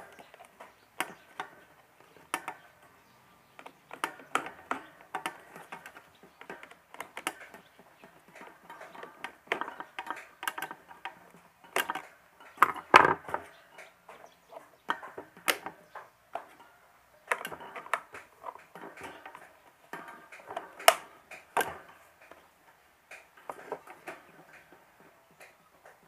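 Irregular plastic clicks and knocks from a stand fan's rotary speed-switch housing being handled and put back together: the cover fitted over the switch and the knob pushed on. The loudest knock comes about halfway through.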